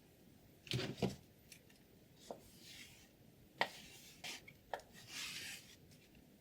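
Scissors and sharpening gear being handled: two knocks about a second in, then scattered sharp clicks and two short rubbing swishes, the second near the end.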